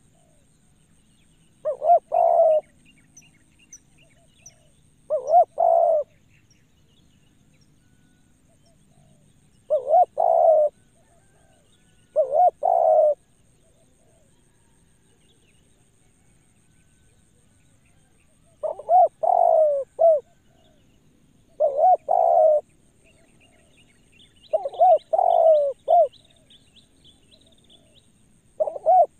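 Spotted dove cooing: about eight short multi-note coo phrases, each around a second long, spaced a few seconds apart. Faint high chirps of small birds come in the background, mostly near the end.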